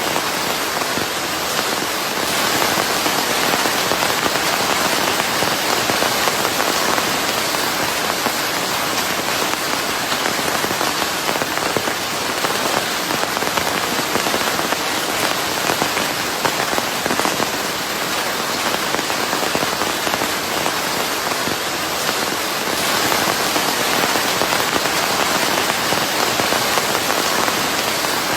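Steady rain falling on a surface, a dense even patter that swells slightly a couple of times.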